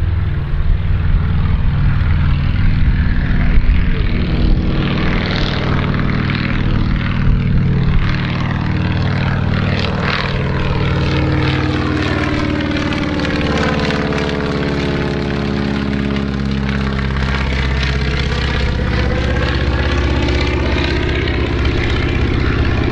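Boeing Stearman biplane's radial engine and propeller at full takeoff power as it rolls and climbs out overhead. A steady, loud engine drone takes on a swirling, phasing sweep, down then back up in pitch, as the plane passes over about halfway through.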